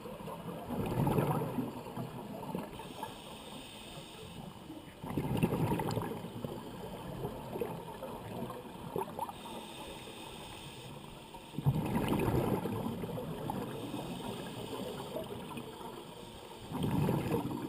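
A scuba diver's exhaled bubbles from the regulator heard through an underwater camera housing: four bubbly bursts about five seconds apart, one per breath, over a quieter steady background.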